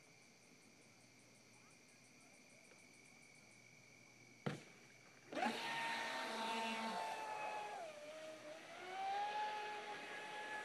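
Insects trilling steadily, then a sharp click about four and a half seconds in. Under a second later the Traxxas Spartan RC boat's brushless electric motor comes in loud with a high whine, dips in pitch briefly and climbs back.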